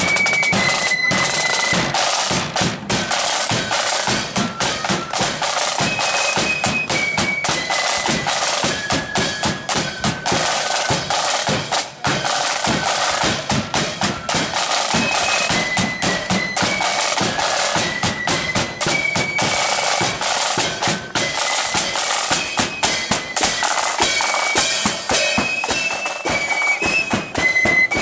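Marching flute band playing: a high flute melody over snare drums played continuously.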